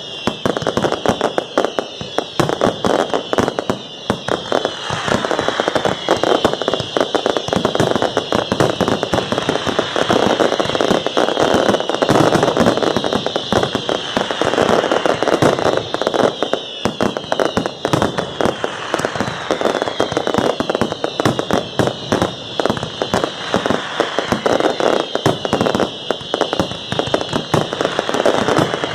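Fireworks display: a dense, unbroken crackle of many pops and bangs, with short high whistles falling in pitch over it again and again.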